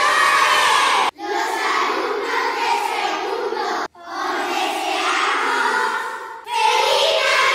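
A group of children's voices calling out together in chorus, in short edited clips. The sound cuts off abruptly about a second in and again near four seconds in, and a new group of voices starts each time.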